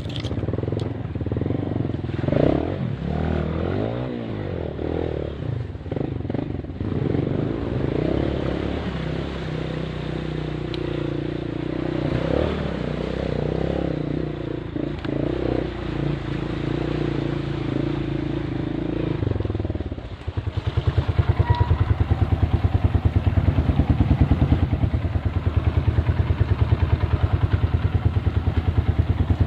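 Motorcycle engine running, its pitch rising and falling with the throttle. About two-thirds of the way through it changes to a louder, steady fast pulsing.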